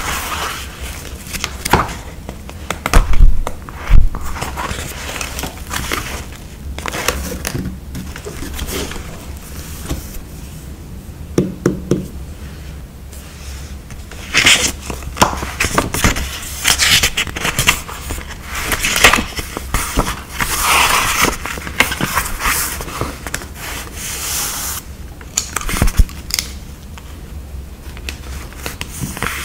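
Stickers and paper being handled up close for journal decorating: stickers peeled and pressed down, paper crinkling, and scissors cutting. Scattered sharp taps and scrapes run over a faint steady low hum.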